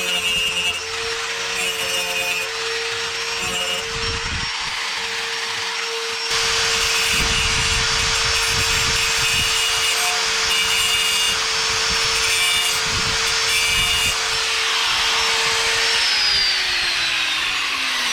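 Electric grinder running and working sheet steel: a steady motor whine under a harsh grinding noise that gets louder about six seconds in. Near the end it is switched off and its pitch falls as it spins down.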